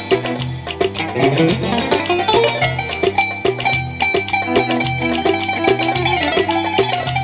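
Kanun, the Turkish plucked zither, played with finger picks: a quick melody of plucked notes and runs.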